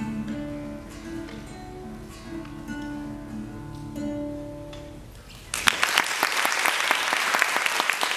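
Nylon-string classical guitar playing the closing plucked notes of a piece, with the last chord ringing out and fading. About five and a half seconds in, an audience starts applauding and keeps clapping.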